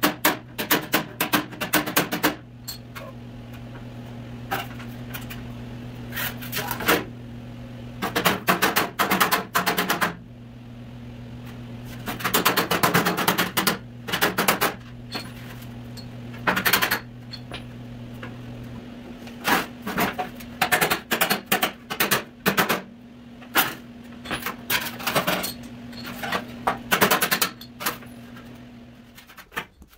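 Body hammer striking the rusty sheet steel of a classic car fender against a dolly, in bursts of rapid metallic blows several a second with short pauses between. A steady low hum runs underneath and cuts off near the end.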